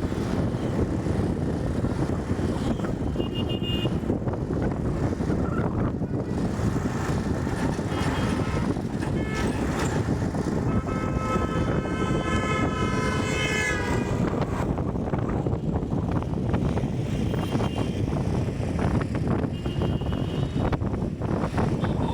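Steady road and engine noise of a vehicle on the move. In the middle a loud pitched tone with several overtones sounds for about three and a half seconds, sliding slightly down in pitch as it passes, and a few short high tones break in now and then.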